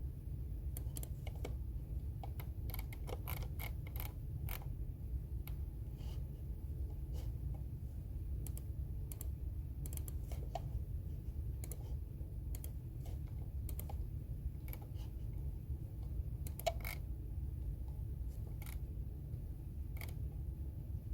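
Computer keyboard being typed on in short, irregular bursts of key clicks with pauses between, over a steady low hum.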